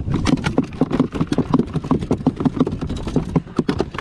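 A small mahi-mahi (dolphinfish) flopping and slapping against the plastic deck and cooler of a jet ski: a rapid, irregular run of wet slaps and thumps, about six a second, as the dropped fish bounces about.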